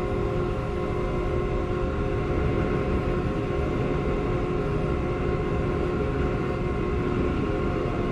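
Haas Desktop Mill running, its spindle spinning an end mill through a plastic block: a steady machine whine with several held pitches over a low rumble.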